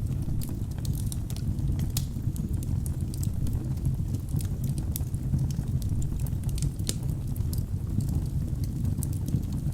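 Wood fire burning in a fireplace: a steady low rumble of flames with irregular sharp crackles and pops from the logs, a couple of louder pops among them.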